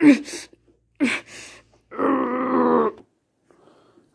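A person grunting twice with effort, then a long strained groan lasting about a second, the sound of someone heaving at a heavy load.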